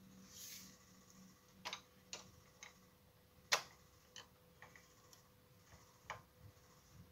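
Faint, irregular clicks of a screwdriver turning out a screw from the plastic handle of a Xerox copier's second transfer roller unit, about six of them, the loudest about three and a half seconds in. A brief soft rustle comes near the start.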